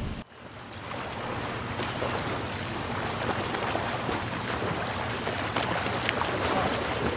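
Small waves washing up and breaking on a sandy beach: a steady rush of surf with a light fizzing crackle.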